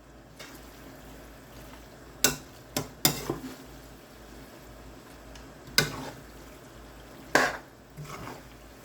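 A cooking utensil knocks sharply against a pot a handful of times as pasta and tomato sauce are stirred, over a steady low hiss from the hot pot.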